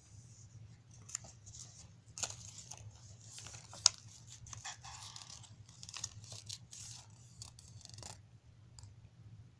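Rustling, crinkling and small clicks of small toy boxes and packaging being handled, with one sharp click about four seconds in. The handling stops about eight seconds in, over a faint low hum.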